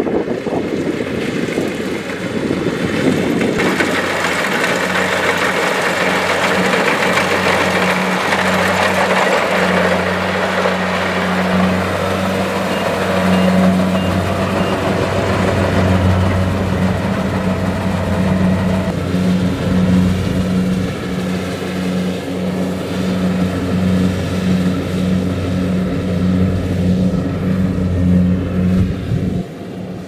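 Kubota DC-70 Plus rice combine harvester running steadily while harvesting: a low, slightly pulsing diesel engine drone with machinery noise, and a rushing hiss that grows about four seconds in.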